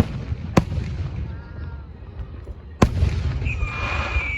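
Aerial fireworks going off: two sharp booms, one just after the start and one near three seconds in, each followed by a long rolling rumble. A high steady whistle starts after the second boom and holds to the end.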